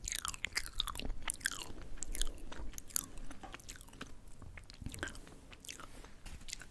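Close-miked chewing of crisp yugwa, Korean fried glutinous-rice crackers coated in puffed rice: many small crackling crunches, dense at first and thinning out over the last few seconds.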